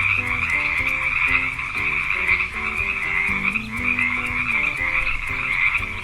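A chorus of frogs croaking, with no break in it.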